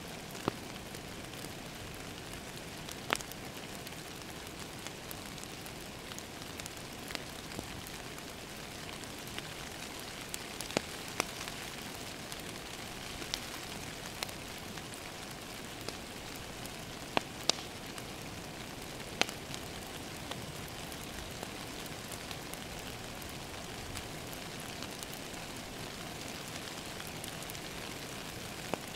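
Steady rain falling against a window, mixed with a crackling wood fire in a fireplace; sharp pops from the fire stand out every few seconds over the even hiss of the rain.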